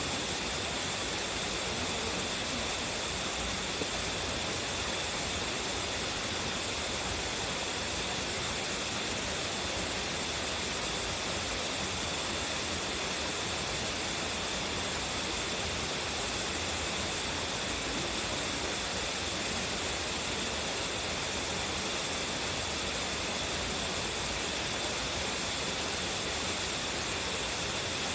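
Waterfall with a strong flow, water pouring and splashing in a steady, even rush that stays unchanged throughout.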